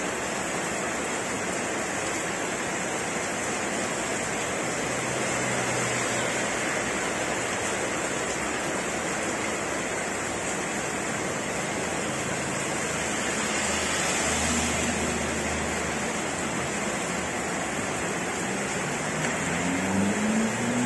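Heavy rain pouring steadily onto a wet paved road. An engine comes in near the end, rising in pitch as a vehicle goes by.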